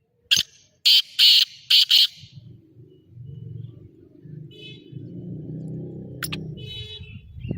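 Black francolin calling: a loud, harsh phrase of one short note and then three rasping notes in quick succession, over about two seconds. Fainter bird chirps follow over a low background rumble.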